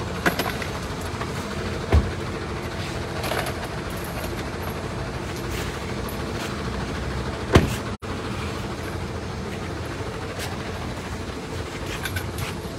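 Steady low hum of engines and machinery in a container yard, with a few sharp knocks; the loudest knock comes about seven and a half seconds in, and the sound cuts out for an instant just after.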